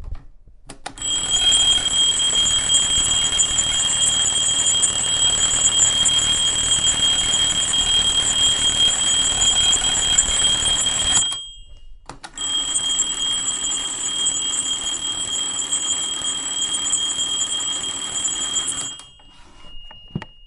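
Alarm clock ringing continuously for about ten seconds, stopping briefly, then ringing again for about seven seconds.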